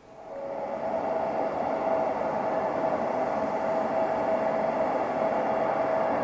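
Embraer 170 jet airliner's GE CF34 turbofan engines running steadily at low power: a steady rushing noise with a single steady whining tone, swelling up over the first second.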